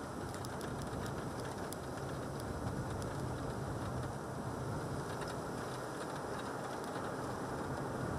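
Steady engine hum and tyre noise of a car driving, heard from inside the cabin.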